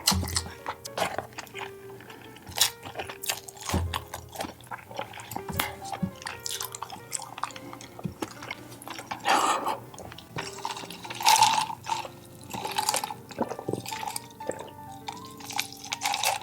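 Close-miked eating: wet chewing and lip-smacking clicks, with a few louder bites about a third and two thirds of the way in, over soft background music.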